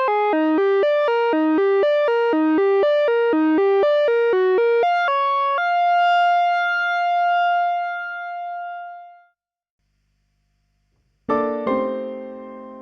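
Software keyboard instrument playing a fast arpeggio of bright, plucked electric-piano-like notes, landing on a held note that fades out. After about two seconds of silence a chord is struck near the end and starts to decay.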